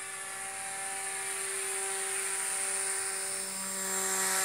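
Small motor and propeller of a radio-controlled model paraglider trike, a steady high-pitched drone that grows louder near the end as it passes low overhead. The owner judges the motor to be running well.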